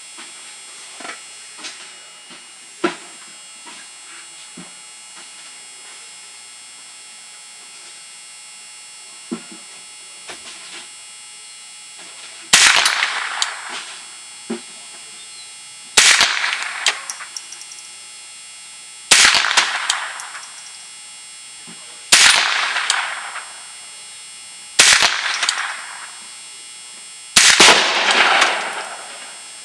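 Ruger 10/22 semi-automatic .22 LR rifle firing six single shots about three seconds apart, each sharp crack trailing off over about a second. Before the shooting starts there are a few light clicks, which sound like handling of the rifle.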